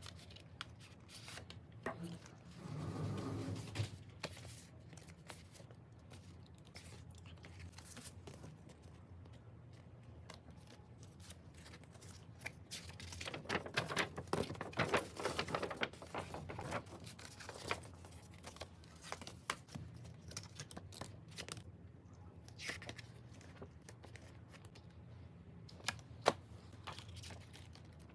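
Album packaging being unwrapped and handled: plastic wrap and paper crinkling and tearing, with scattered clicks and taps, and a denser stretch of rustling about halfway through.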